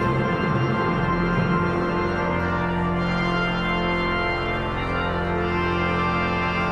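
Organ and brass quartet holding broad, slowing chords at the close of a festival piece, with a new sustained chord over a deep organ pedal bass coming in about a second in.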